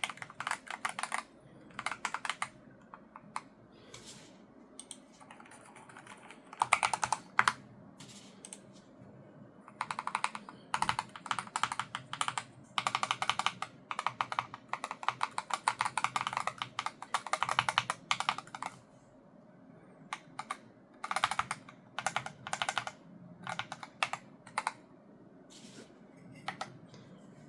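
Typing on a Logitech G Pro X TKL Rapid keyboard with Hall-effect magnetic linear switches: rapid keystroke clacks in bursts of a few strokes to several seconds of continuous typing, broken by short pauses.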